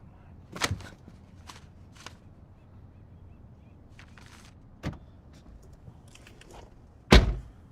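Three short, sharp thumps against a quiet background: one early, one about four seconds later and the loudest near the end, with a few faint clicks in between.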